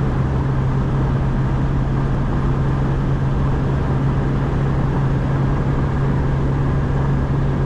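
Cabin sound of a 1991 Škoda Favorit 135L at about 140 km/h with its 1.3-litre four-cylinder engine at full throttle in fifth gear: a steady low engine drone mixed with wind and road noise, the car gaining speed only slowly.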